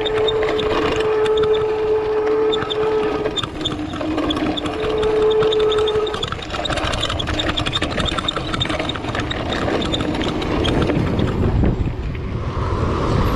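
Mountain bike coasting down a dirt trail: tyre and wind rumble with the fast ticking of the rear hub's freewheel. A steady tone sounds for about three seconds at the start, then again briefly about five seconds in.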